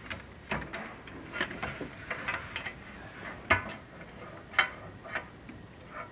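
Irregular light clicks and knocks, about half a dozen over a few seconds, the loudest two close together near the middle: a chimney inspection camera and its cable being lowered down the flue, bumping against the masonry.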